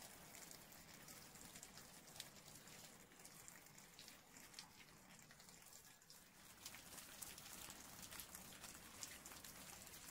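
Faint water dripping: scattered small ticks over a quiet hiss, close to silence.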